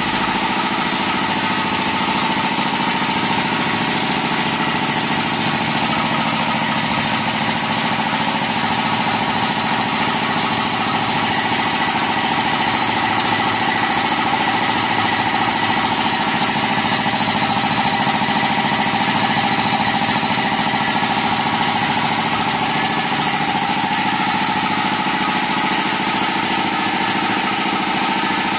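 PowerCraft 5.5 HP belt-driven three-piston air compressor running steadily, its electric motor driving the pump, with a steady whine over the machine's hum.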